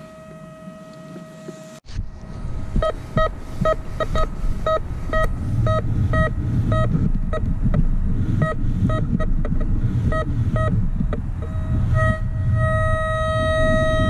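Metal detector beeping a repeated mid-pitched beep, about two or three a second, that turns into a longer steady tone near the end: a target signal over buried metal. Low rustling and handling noise runs underneath.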